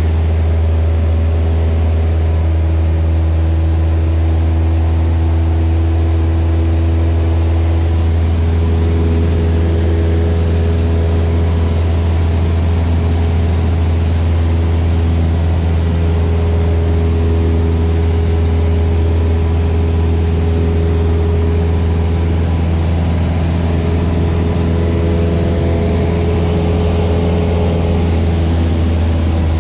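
Light high-wing propeller plane's engine and propeller droning steadily in cruise, heard from inside the cabin: a loud, unchanging low hum with a stack of steady engine tones above it.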